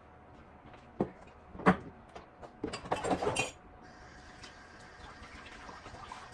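Dishes being handled in a kitchen sink: two sharp knocks, then a short burst of clattering, followed by a faint steady rush of water from the tap.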